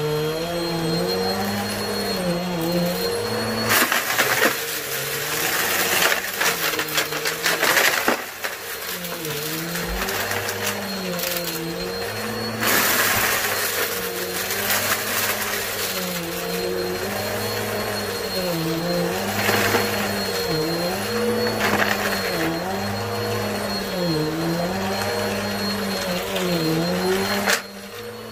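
Vacuum cleaner running over a carpet, its motor hum dipping and rising in pitch about every two seconds as it is pushed back and forth. In several stretches, a few seconds each, a louder hiss and rattle of debris being sucked up comes through.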